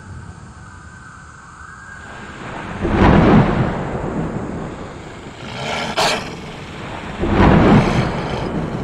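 Thunder: a low rumble with two loud crashes about four seconds apart and a short sharp crack between them.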